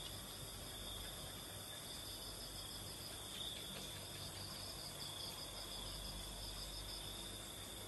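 Crickets and other night insects chirring steadily at several pitches, one with a fast pulsing trill.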